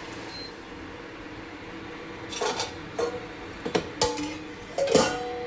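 A metal pot or vessel clinking and clattering about five times over a few seconds, the last knocks ringing briefly, over a steady background hum.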